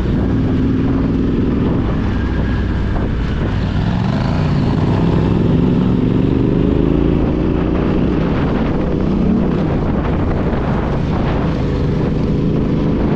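Yamaha Ténéré 700's parallel-twin engine running under way, its note rising and falling with the throttle and climbing twice, about four seconds in and again about eight seconds in.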